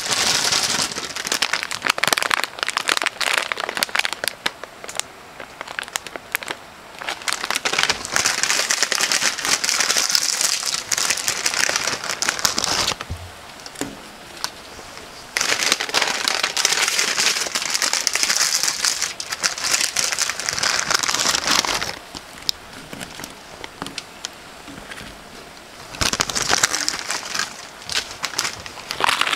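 Spicy broth with pork sizzling and bubbling hard in a wide, hot pan: dense crackling that comes in loud stretches several seconds long, with quieter spells between.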